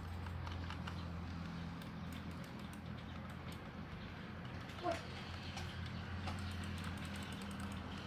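Scattered light plastic clicks and taps from a computer mouse being handled and clicked, over a steady low electrical hum, with one short rising squeak about five seconds in.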